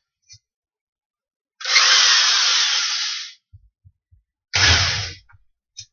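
Electric drill run in two short bursts: a run of about two seconds whose pitch sinks as it goes, then a burst of under a second, with small knocks in between.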